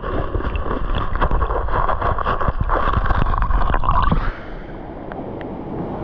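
Muffled water noise heard through a camera held underwater in a waterfall pool: a dull rushing with many small clicks and bubbling. It drops to a quieter hiss about four seconds in.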